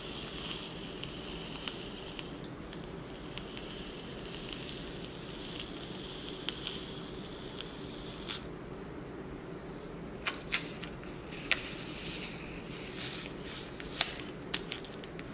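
Fingers and a small pry tool working on a Lumia 950 XL phone's bare mid-frame as a glued flex cable is slowly peeled away. There is a faint rasp for the first several seconds, then scattered sharp clicks in the second half.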